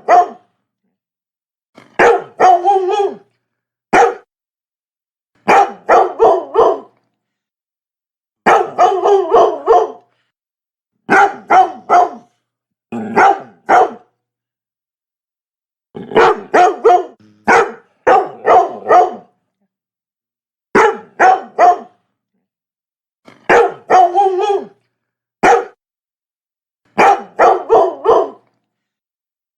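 Labrador barking in short runs of two to four barks, about a dozen runs with brief silent gaps between them.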